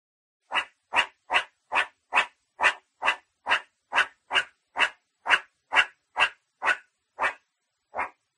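Meerkat giving a run of short barking calls, about two a second, seventeen in all, with a longer pause before the last one.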